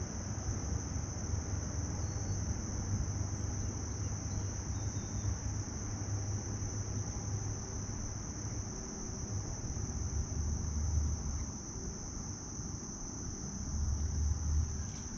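Insects chirring in a steady, high-pitched chorus, with a low rumble underneath.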